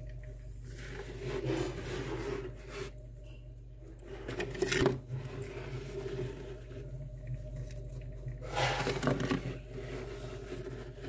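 Bare fingers scraping and scooping loose freezer frost, in bouts of gritty scraping about a second in, around five seconds and near the end.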